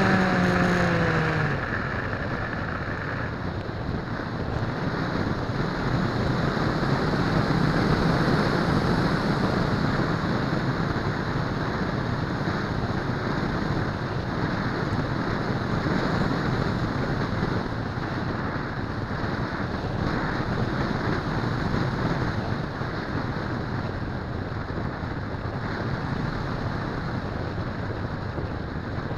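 Dynam Hawk Sky RC plane's electric motor whining down in pitch over the first second or so, then a steady rush of wind noise on the microphone as the plane carries on without the motor sound.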